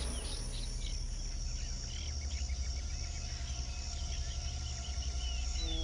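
Woodland ambience: insects droning steadily at a high pitch, with many short bird chirps scattered through it and a low steady rumble underneath.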